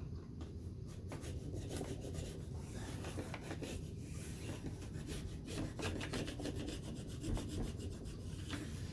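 Screen spline roller pressing the spline and mesh into a window screen frame's channel: a run of short rubbing, scraping strokes with small ticks.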